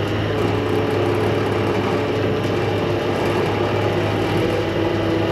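Truck engine idling steadily, a constant low hum with a steady tone above it and no change in speed.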